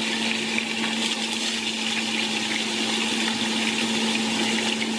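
Small salay fish frying in hot oil in a pan: a steady sizzle with a steady low hum underneath.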